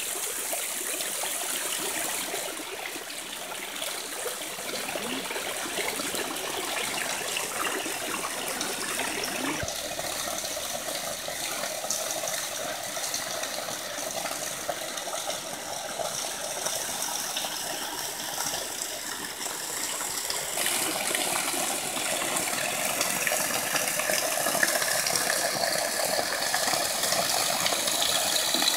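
Small waterfall: a stream of water pouring from a pipe spout and trickling down a rock face, splashing onto stones and into a puddle with a steady rush. It gets louder in the last third as the water comes close.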